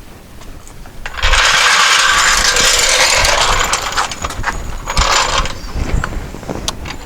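A mechanism running with a continuous ratcheting rattle for several seconds. It breaks off briefly near the end and then starts again.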